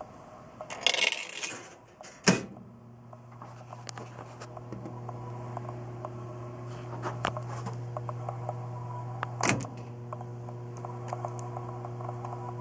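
A quarter dropped into a Seeburg jukebox's coin slot rattles down through the coin mechanism and ends in a sharp clunk about two seconds in. Then the jukebox gives a steady low hum, with scattered small clicks and one louder clack a few seconds before the end.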